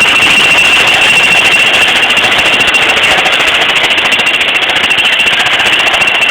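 Jackhammer running continuously: loud, rapid, even hammering with a steady high ringing tone over it.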